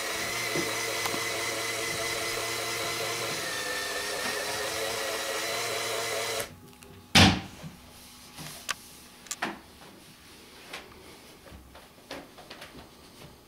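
LEGO Power Functions electric motors and plastic gearing running steadily in a model walking dragline's walking mechanism, a whining hum that cuts off suddenly about halfway through. About a second later comes one sharp knock, then a few faint clicks.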